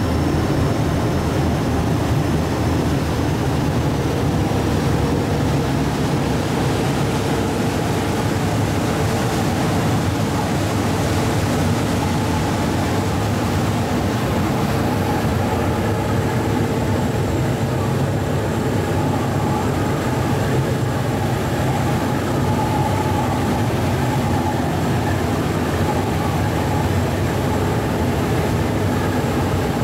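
Ferry engine running with a steady, loud drone, heard from on board the boat.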